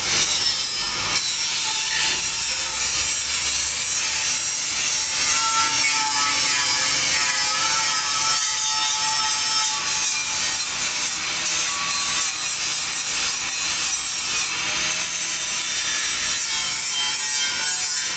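Handheld angle grinder running with its disc pressed against a welded steel frame: a steady abrasive grinding with faint whistling tones that come and go.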